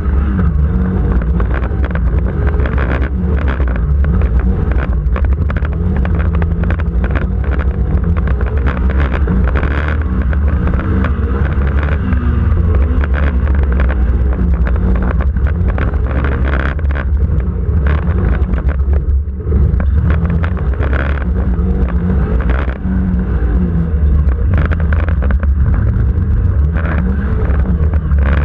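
Off-road racing special's engine running hard under load, heard from onboard, with many short knocks and rattles as the caged vehicle bounces over the rough dirt course.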